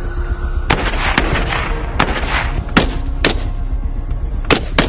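Scoped rifle firing, about seven sharp shots in a little over four seconds at uneven spacing, each with a short echoing tail.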